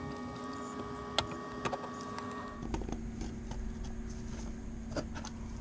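Small clicks and taps of a screwdriver and gloved hands working at a wall-mounted line-voltage thermostat, over a steady hum. The hum changes abruptly about halfway through.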